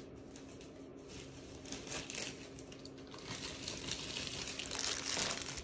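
Thin plastic disposable food glove crinkling and rustling as it is handled, growing louder over the last couple of seconds.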